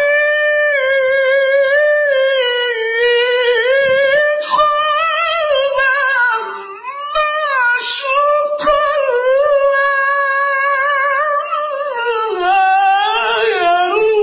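A man singing an Islamic devotional ibtihal solo without accompaniment, stretching a syllable into a long melisma: high held notes with wavering ornamental turns. There is a brief dip about six and a half seconds in, and the line steps lower near the end.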